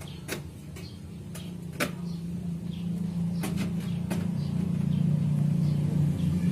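A few sharp metallic clicks and taps of bolts being fitted into a computer case frame, over a low hum that grows steadily louder.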